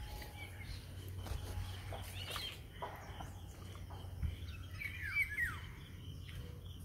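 Birds calling in short chirps: a brief call about two seconds in and a louder run of chirps about five seconds in, over a steady low rumble.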